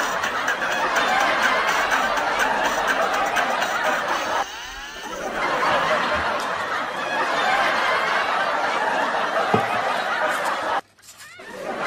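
Laugh track: a crowd of people laughing and chuckling together in a dense, steady wash. It dips briefly about four and a half seconds in and cuts out sharply near the end before swelling back.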